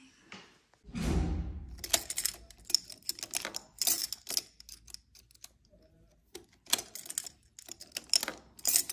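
Keys clinking and a key clicking and rattling in a door's cylinder lock as it is worked, with many sharp metal clicks over several seconds. The lock resists because its knob must be turned up before the key will turn. There is a dull thump about a second in.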